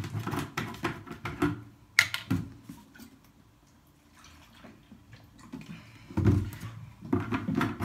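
Laundry being handled at a washing machine: scattered soft knocks and clicks, with a sharp click about two seconds in, a quiet spell in the middle and a few thumps near the end.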